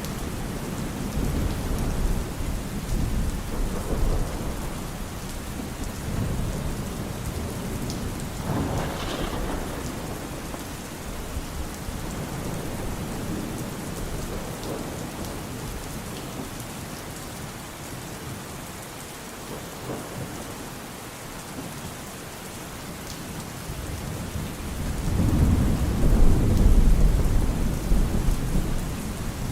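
Thunderstorm: steady rain falling, with low rolling thunder rumbling through it. A short rumble comes about a third of the way in, and a louder, longer roll of thunder builds near the end.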